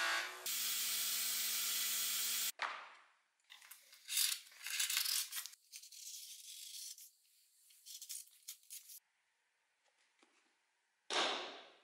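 Bench grinder running steadily, its motor humming, then cutting off abruptly after about two and a half seconds. Bursts of metal scraping and rubbing follow, and near the end a sudden short rush of noise that fades quickly.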